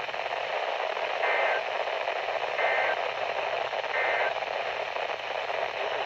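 Three short, identical warbling data bursts about 1.4 seconds apart over a steady static hiss from a Midland weather radio's speaker: the SAME end-of-message code that closes a NOAA Weather Radio severe thunderstorm warning.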